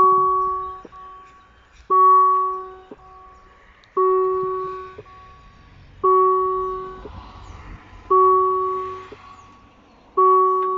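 Railway level-crossing electronic warning bell striking six times, about two seconds apart, each ding dying away, warning that a train is approaching.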